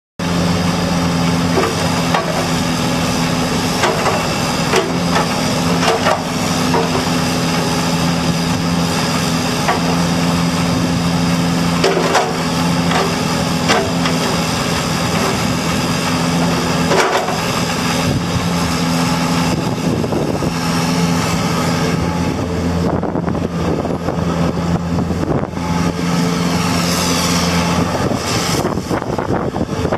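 Diesel engine of a 2003 Bobcat 331 mini excavator running steadily under hydraulic load as the boom and bucket are worked, with sharp metal clanks from the bucket and linkage now and then. In the last third the engine note shifts and grows rougher as the machine turns and moves on its tracks.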